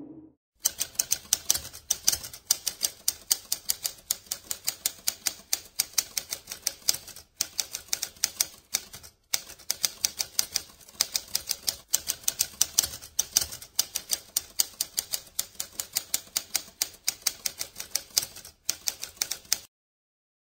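Typewriter keys striking in a rapid run, several strokes a second, with a few brief pauses; the typing stops about a second before the end.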